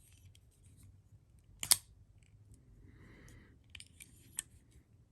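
Shirogorov Kami flipper knife being worked by hand: one loud, sharp metallic click about 1.7 seconds in as the blade snaps open, then a few lighter clicks near the end.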